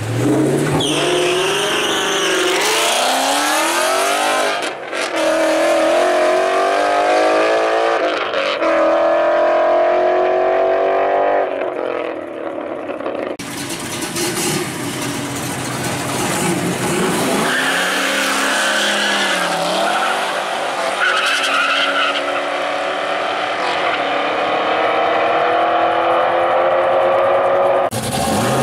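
Drag-race vehicles' engines accelerating hard down the strip, their pitch climbing and dropping back several times as they shift gears.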